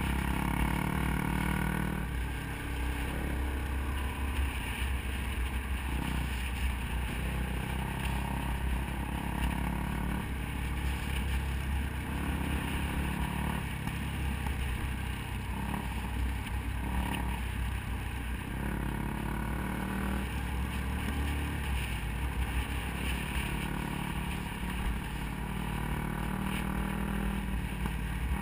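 Off-road motorcycle engine running while riding a gravel road, heard close from a camera on the bike, with the throttle easing off and opening again every few seconds.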